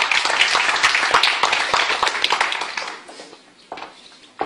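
Audience applauding, the clapping dying away about three seconds in, followed by a single sharp knock near the end.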